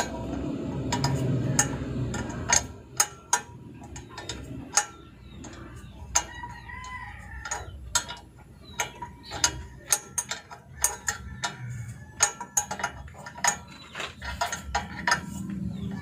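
Irregular sharp metallic clicks and taps from hands working loose the brass hose nozzle fitting on a truck's air horn relay valve.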